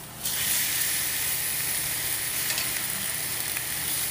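Marinated, pounded chicken breasts sizzling steadily on hot grill grates, with a few small pops. The sizzle starts abruptly a moment in.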